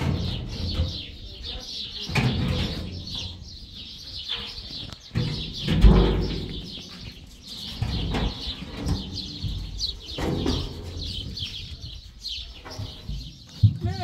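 Small birds chirping and twittering continuously, with several dull low thuds spaced through it, the loudest about six seconds in.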